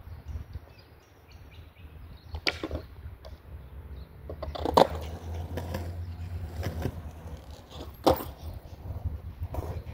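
Skateboard rolling with a low wheel rumble, punctuated by about four sharp clacks of the board hitting the ground, the loudest about five seconds in.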